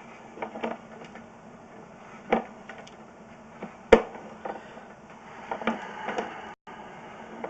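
Scattered clicks and knocks of equipment being handled, two sharper ones about two and four seconds in, over a faint steady hum.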